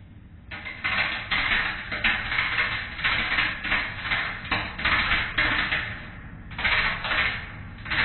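Compact discs arcing inside a running microwave oven: loud crackling and buzzing in irregular bursts over the oven's steady hum, as the discs' thin metal layer sparks. The bursts ease off briefly about six seconds in, then start again.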